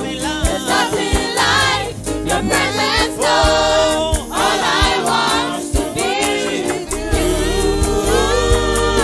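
Gospel worship song: voices singing together over a band with a steady beat.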